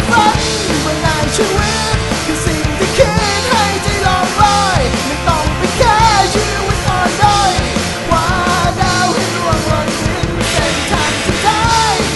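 Grunge-leaning alternative rock band song, a demo recording, with a voice singing over guitars, bass and drums.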